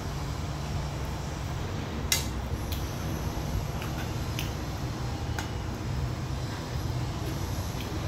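A metal spoon clicking and scraping against a stone-coated frying pan a handful of times as food is scooped, the sharpest click about two seconds in, over a steady low background hum.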